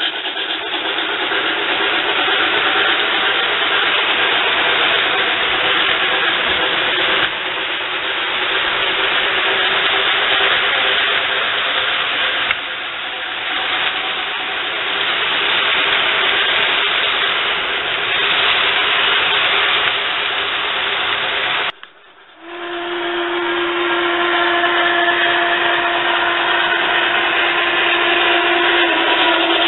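MTH model of the Southern Pacific 4449 steam locomotive and its Daylight passenger train running on a model railroad, its onboard sound system playing a steady steam hiss over the rolling of the wheels. The sound breaks off briefly about two-thirds of the way through, then returns with a steady tone held for several seconds.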